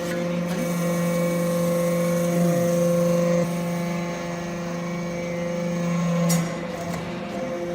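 Hydraulic scrap metal briquetting press running: a steady motor and pump hum that eases off about three and a half seconds in, with a sharp clack a little past six seconds.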